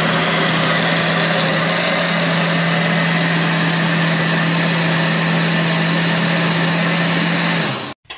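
Oster countertop blender motor running at a steady, even pitch while blending a thick liquid mixture. It stops near the end.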